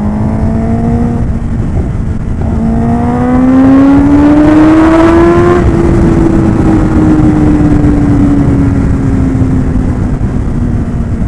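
Kawasaki Ninja ZX-10R's inline-four engine under way, its note climbing, dropping away briefly about a second in, then pulling up again to its loudest about five and a half seconds in before easing slowly down in pitch. A steady rush of noise runs underneath.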